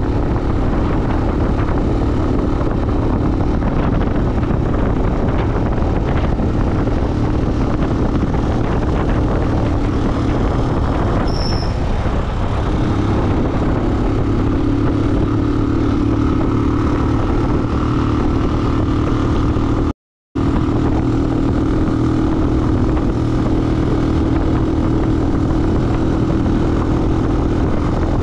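A motor vehicle on the move: steady engine hum with road noise. The sound cuts out for a moment about twenty seconds in.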